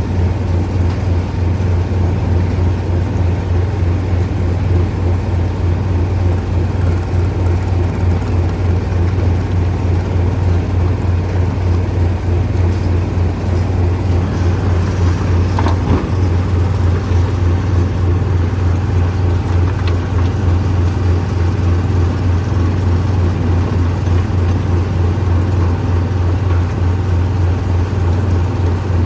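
Stone crusher running steadily under power with a loud, low, rapidly pulsing hum, and one brief knock about halfway through.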